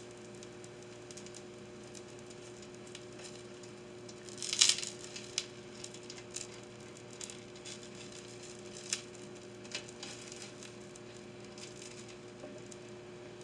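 Pancakes cooking faintly in an Oster electric skillet, under a steady low hum, while a rubbery silicone spatula scrapes under them in the pan about four and a half seconds in, followed by a few light taps.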